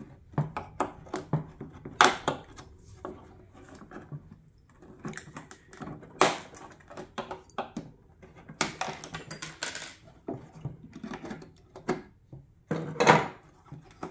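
Metal retaining clips being pried off a plastic car headlight housing with a flathead screwdriver: irregular small metallic clicks and snaps, short scrapes, and a few louder knocks as the housing is handled on a wooden table.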